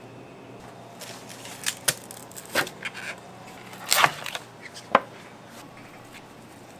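Sharp plastic clicks and knocks as the lid is pried off a large plastic ice cream tub, a run of them over a few seconds with the loudest near the middle.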